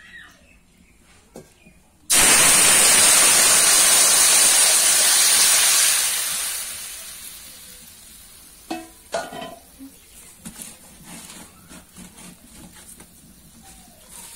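Koi fish and potato curry poured from a steel bowl into a hot, oiled wok, setting off a sudden loud sizzle about two seconds in. The sizzle holds for a few seconds, then dies away into the quieter bubbling of the curry boiling.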